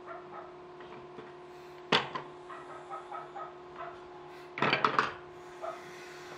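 Wooden pieces knocking on a wooden workbench: a single knock about two seconds in, then a quick clatter of several knocks a little past halfway, as bent laminated frame parts and loose wooden strips are handled and set down. A faint steady hum runs underneath.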